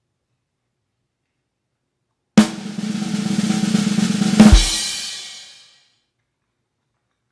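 Drum roll sound effect that starts suddenly about two and a half seconds in. It rolls for about two seconds, then ends on a bass drum hit with a cymbal crash that rings out and fades.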